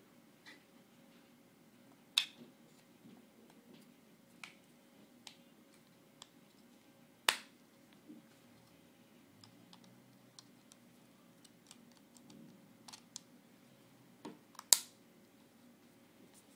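Two-piece rubberized plastic iPhone 3G case being snapped onto the phone: sharp plastic clicks, with three loud snaps about two seconds in, seven seconds in and near the end, and lighter taps and handling between.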